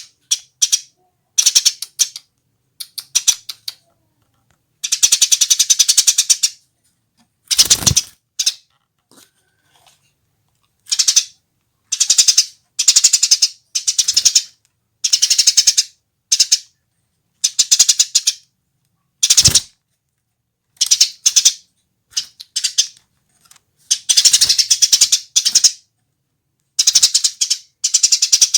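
A female Eurasian tree sparrow chattering in repeated bursts of rapid, rattling chirps, each burst half a second to two seconds long, with short pauses between them.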